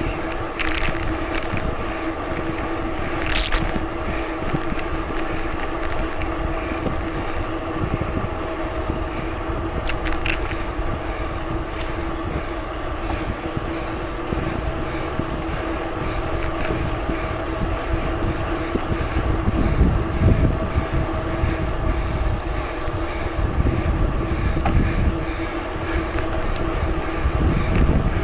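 Riding a bicycle: wind buffeting the microphone and the rolling noise of the bike, under a steady hum. The gusts swell about two-thirds of the way through and again near the end, and there are a couple of sharp clicks early on and about ten seconds in.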